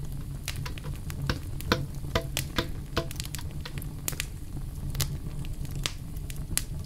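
Scattered sharp clicks and light taps of kitchen utensils against a container, a few ringing briefly in the middle, over a steady low hum: blended curry paste being scraped out into a bowl.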